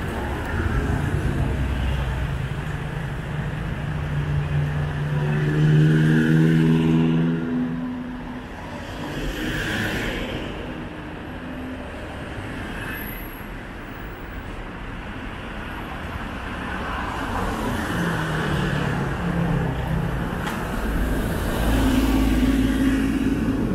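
Street traffic: motor vehicles passing close by, their engine hum swelling and fading, loudest about six seconds in and again near the end.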